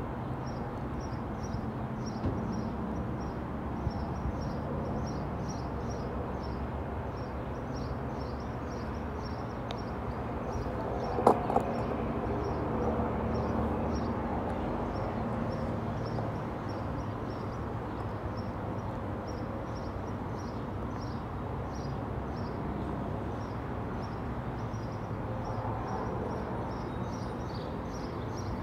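Outdoor railway platform ambience with no train passing: a steady low background rumble, a high chirp repeating about three times a second, and a single sharp metallic clank about eleven seconds in.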